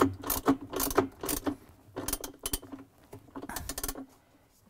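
Socket ratchet wrench clicking in irregular runs as it tightens the washer's agitator bolt, stopping about four seconds in.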